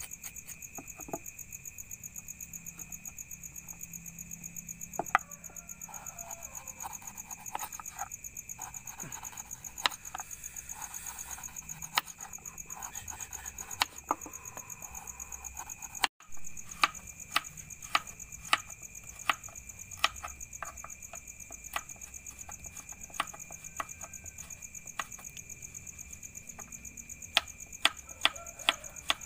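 A knife slicing carrots on a wooden board: sharp, irregular knocks of the blade against the wood, coming faster in the second half. A steady, high, pulsing chorus of night insects runs underneath, and the sound drops out for a moment about halfway.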